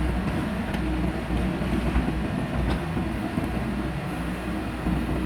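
Diesel engine of heavy earthmoving machinery running steadily with a deep rumble, with a few light clanks.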